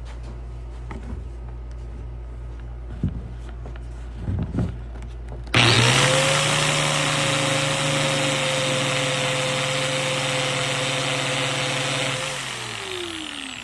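Light metallic clinks of small parts being handled. About five seconds in, a small electric power tool switches on abruptly and runs steadily with a whine and a rubbing hiss as the metal cabinet catches are polished. Near the end it is switched off and winds down, its pitch falling.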